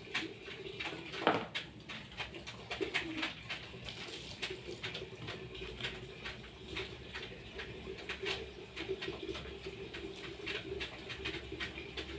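Doves or pigeons cooing in low, wavering notes, with frequent light clicks and one louder knock about a second in.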